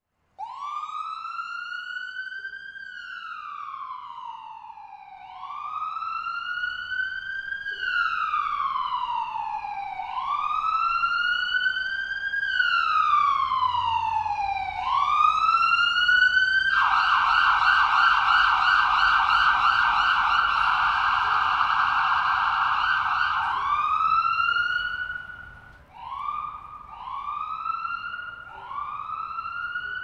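Emergency-vehicle siren sound effect: a slow rising-and-falling wail repeating about every two and a half seconds. About seventeen seconds in it switches to a fast warble, its loudest part, for about seven seconds, then goes back to shorter wails near the end.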